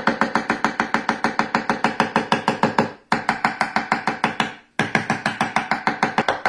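Knife rapidly chopping fresh parsley on an end-grain wooden cutting board: even knocks about seven a second, in three runs broken by two short pauses.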